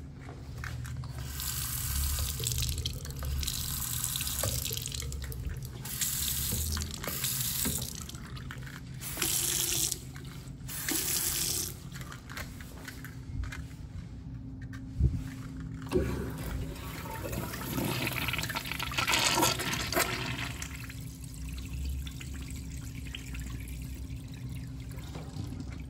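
Restroom sink faucets turned on and off in several turns, water running and splashing into the porcelain basins. Later a urinal flushes, water rushing and swirling through the bowl.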